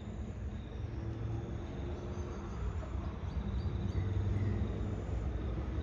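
Diesel train engine running low and steady, slowly growing louder as it approaches.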